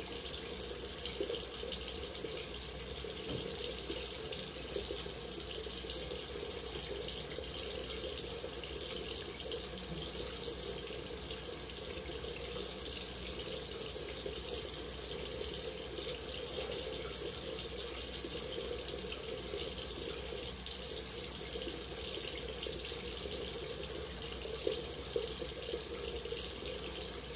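Bathroom sink faucet running steadily, a constant hiss of water into the basin.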